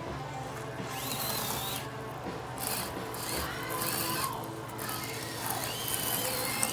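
Axial SCX24 Deadbolt RC crawler's small electric motor and geartrain whining as it climbs a cardboard ramp, the whine rising and falling in pitch with the throttle.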